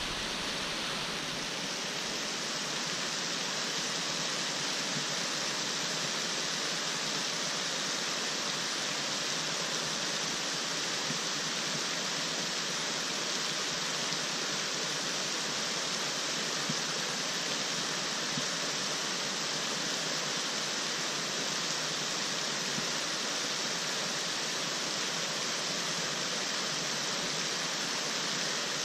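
A steady, even rushing noise that starts suddenly and holds unchanged.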